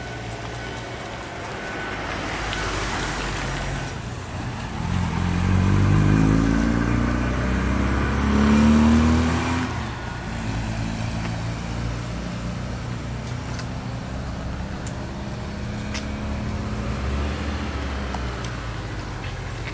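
A motor vehicle's engine speeding up and rising in pitch, loudest about six and nine seconds in, over a steady low engine hum.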